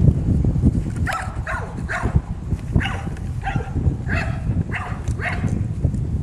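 Seven-week-old bulldog puppy giving about eight short high yips in a row, over a steady low rumble.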